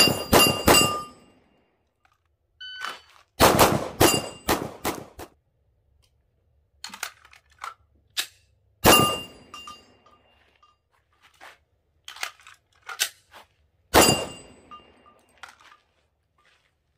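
Pistol shots fired in quick strings at a steel target, with the steel ringing after hits. A short electronic shot-timer beep sounds just before the second string, which follows within about a second: a fast draw from the holster.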